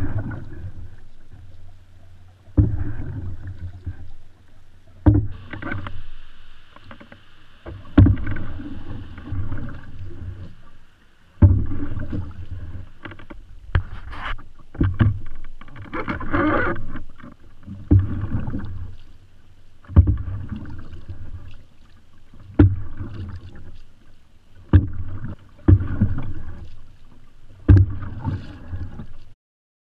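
Paddle strokes from an open canoe: each stroke starts with a sharp knock of the paddle against the hull, followed by the splash and rush of water. The strokes repeat every two to three seconds.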